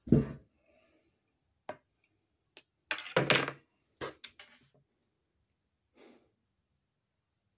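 Handling knocks: a heavy thump at the start, then a cluster of knocks about three seconds in, and a few lighter taps after, as things are put down and arms come to rest on a desk.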